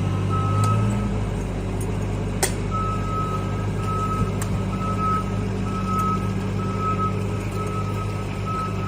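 Truck's back-up alarm beeping about once a second over the steady drone of its running engine. One beep comes near the start, then a pause, then regular beeping from about three seconds in. There is a single sharp knock about two and a half seconds in.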